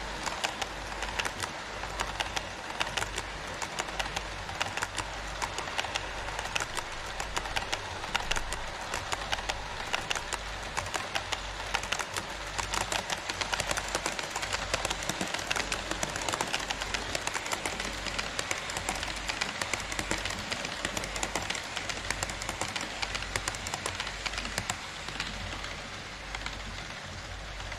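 HO-scale Twilight Express model cars rolling past on KATO Unitrack: a steady rattle of small metal wheels on the rails with many quick clicks over the rail joints. It eases off near the end as the train clears.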